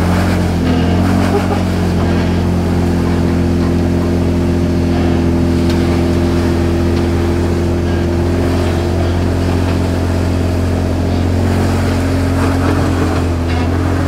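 A 2014 Jeep Wrangler Unlimited Rubicon's 3.6-litre V6 running steadily under load as the Jeep crawls up a steep rock ledge. The revs step up slightly about a second in and then hold.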